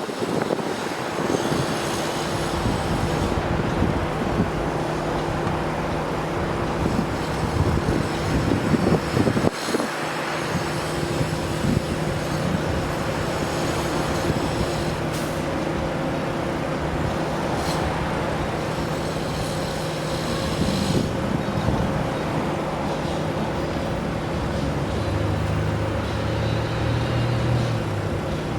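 Steady motor-vehicle noise with a constant low engine hum, and a few brief louder swells as vehicles pass.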